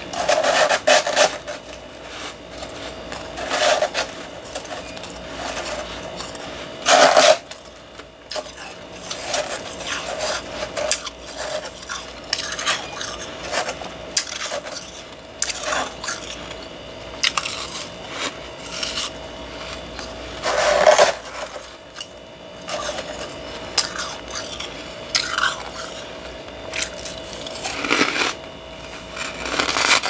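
Close-miked crunching and chewing of mouthfuls of soft, powdery freezer frost grown with a humidifier. Crackly chewing runs throughout, with a few loud bites near the start and about 7, 21 and 28 seconds in, over a faint steady hum.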